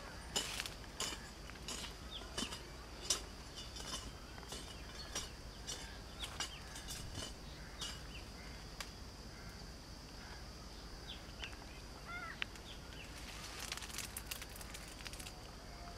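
Birds chirping with many short, sharp calls and a few rising-and-falling notes, over a faint steady high-pitched hum of outdoor background.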